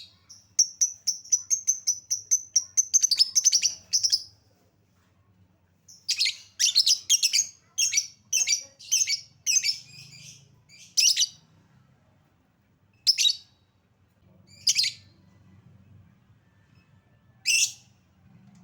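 Lovebird chirping: a fast run of high, shrill chirps for about four seconds, then a second run of harsher chirps, then single sharp calls a couple of seconds apart.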